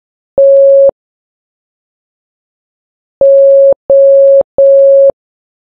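Morse code practice tone sending four equal short beeps of one steady pitch: a single beep, then after a pause of about two seconds, three beeps in quick succession. At 3 words per minute these half-second beeps are dots.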